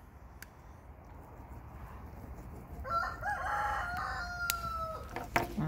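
Rooster crowing once, starting about halfway through: a call of about two seconds that ends in a long, slightly falling note.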